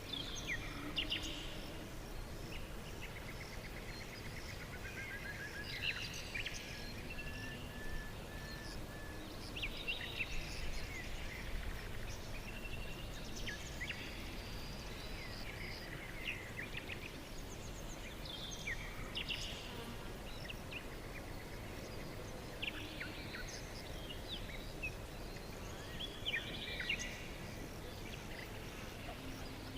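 Several songbirds singing and calling at once: short chirps, quick pitch sweeps and rapid trills, including a run of evenly repeated notes about seven seconds in. Under them is a steady low background rumble.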